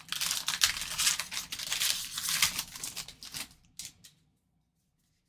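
Foil wrapper of a trading-card pack being torn open and crinkled: a dense crackling rustle that stops about four seconds in.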